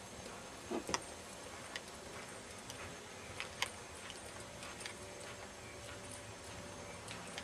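Soft, irregular hoofbeats of a ridden horse moving over arena sand, with a few sharper clicks, the loudest about a second in and about three and a half seconds in.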